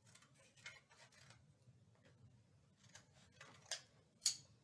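Faint handling of paper on a tabletop: light rustles and soft ticks, with two sharper clicks near the end.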